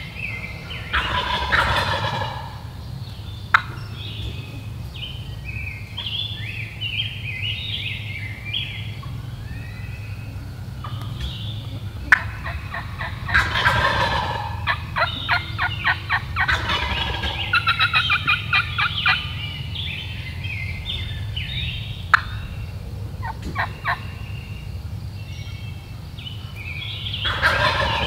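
Wild turkey gobbler gobbling, with loud bouts about a second in, around the middle and again at the end. Rapid sharp notes fall between the gobbles, and songbirds sing in the background.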